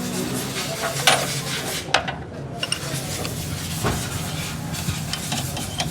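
A Suzuki Mehran's small three-cylinder engine running with a steady low hum, with sharp metallic clinks now and then.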